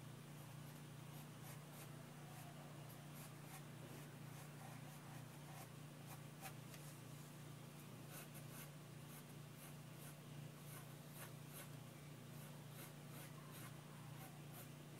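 Graphite pencil sketching on paper: faint, quick scratching strokes, coming thicker from about five seconds in, over a steady low hum.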